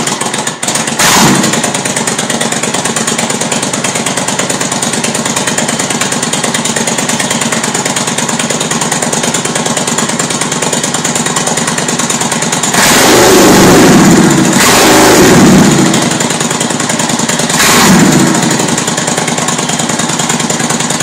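Suzuki Intruder VS1400's V-twin engine idling with a loud, lumpy beat through its exhaust, revved up and back down several times: a quick blip about a second in, two longer revs past the middle, and one more near the end.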